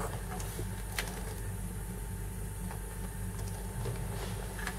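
Steady low electrical hum, with a faint click about a second in.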